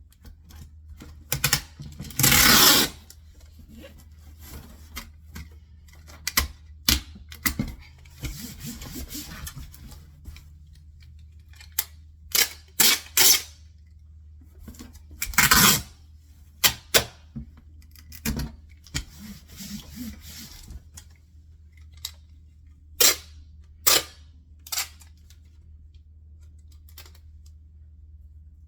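Packing tape being pulled off the roll onto a cardboard box: two long, loud tape pulls, about two seconds in and again near the middle, with short snaps, taps and rubbing of the tape and cardboard in between.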